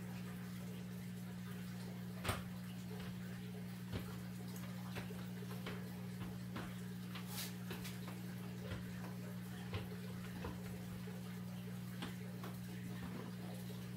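Plastic lid clips of a Fluval FX4 canister filter being worked open by hand: about ten scattered sharp clicks and snaps, the loudest a little over two seconds in, over a steady low hum.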